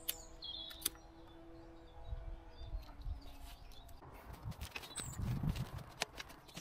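Faint outdoor ambience: a few short bird chirps over scattered sharp clicks and low rumbling from about two seconds in.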